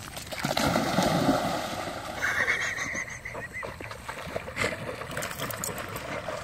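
Two dogs splashing as they charge off a bank into a pond, the loudest splashing in the first two seconds, then churning water as they swim.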